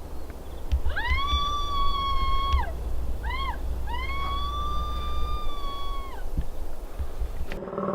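Three high, drawn-out howl-like calls: a long one, a short rise-and-fall, then another long one. Each swoops up, holds steady and drops off at the end, over a low rumble.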